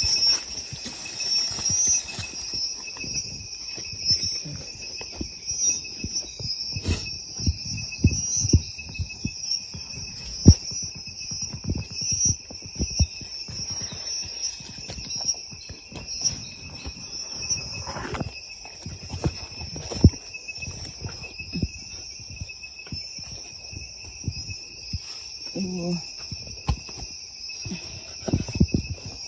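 Steady insect chorus, crickets shrilling on two constant high pitches, with irregular knocks and thuds of handling throughout.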